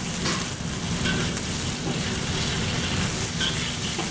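Sliced chicken sizzling in a hot carbon-steel wok over a gas flame as it is stir-fried, cooked through to well done, with a metal spatula clinking and scraping against the wok a few times.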